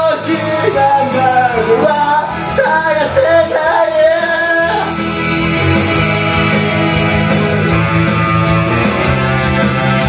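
A man singing into a karaoke microphone over a pop backing track; his voice stops about five seconds in and the instrumental backing track carries on alone.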